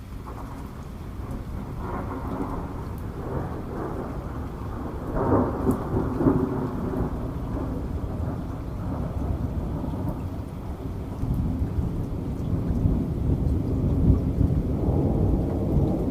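Rain falling with rolling thunder: a low rumble that builds, is loudest about five seconds in, then rolls on and swells again near the end.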